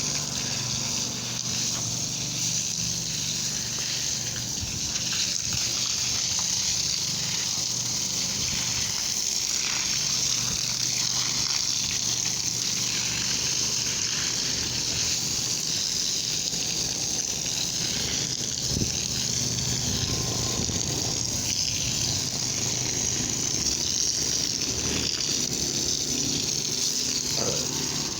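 Water gushing steadily, with a low steady hum underneath.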